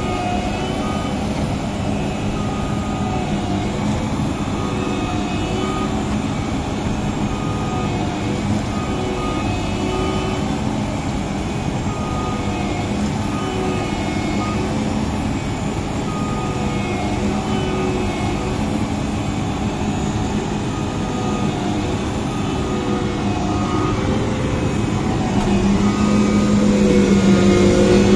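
Massey Ferguson combine harvester engine running steadily under load, with a short beep repeating throughout. The engine note grows louder about three seconds before the end.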